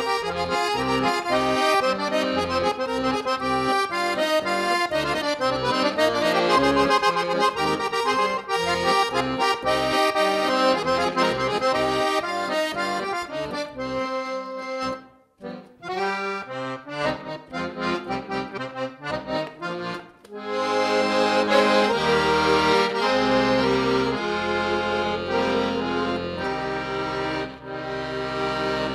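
Piano accordion playing a Christian song: a melody on the treble keys over bass and chord buttons. It breaks off briefly about halfway through, then goes on in held chords over bass notes.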